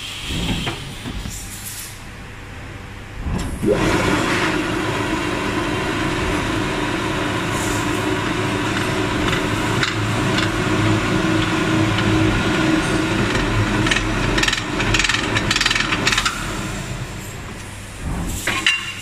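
A motorcycle rim spinning-forming machine running as its rollers shape a steel rim: a steady mechanical hum that starts about three and a half seconds in and stops a couple of seconds before the end, with a few knocks near the end.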